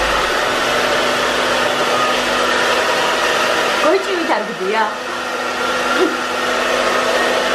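Handheld hair dryer running steadily: a constant blowing noise with a low hum under it.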